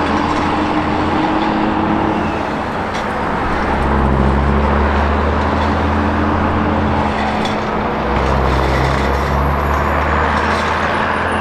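Diesel engine of a Hyundai HX480L crawler excavator running: a steady low drone that swells and eases every few seconds, over a broad mechanical hiss.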